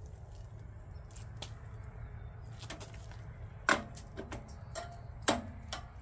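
Scattered clicks and snaps of a headlight retaining ring and spring being worked into place by hand on the headlight mount, the loudest snaps near four seconds in and just after five.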